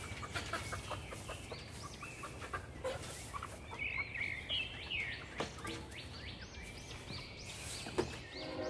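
Chickens clucking with many short, high calls, along with a few light knocks and rustling as a plastic water dish is handled in the straw.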